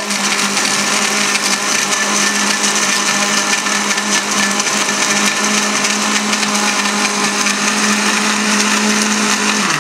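Electric blender running steadily, its motor whirring as it mixes ice and liquid into a cocktail. It switches off just before the end.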